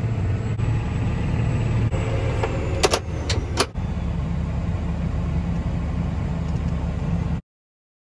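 A John Deere tractor's engine running steadily, heard from inside the cab while it pulls a grain cart, with a few sharp knocks about three seconds in. The sound cuts off abruptly near the end.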